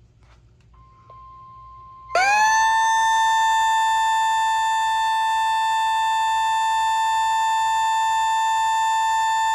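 Weather radio alert tone for a severe thunderstorm warning. A faint steady tone comes in about a second in. At about two seconds a loud, harsh, buzzing alarm tone sweeps quickly up in pitch and then holds steady.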